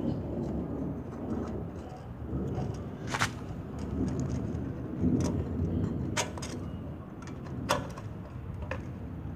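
Metal clicks and knocks from a dual carburetor being handled and fitted onto a petrol generator's engine, with a few sharp clicks about three, six and seven and a half seconds in, over a low rumble.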